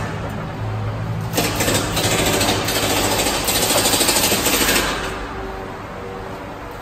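Workshop machinery under a pickup truck on a drive-on lift: a low motor hum, then from about a second and a half in a loud, rapid rattling clatter that fades over the last couple of seconds.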